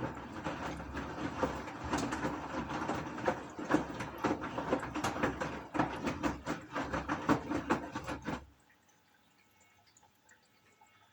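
Gorenje washing machine drum turning in a wash cycle, water and laundry sloshing with irregular knocks, then stopping abruptly about eight and a half seconds in.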